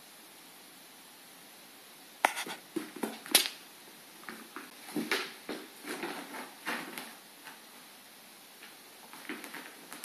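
A kitten scrabbling and tumbling on a hardwood floor and shag rug: sharp knocks about two and three seconds in, the loudest sounds, then irregular runs of claw scratching and paw thumps, with a few more near the end.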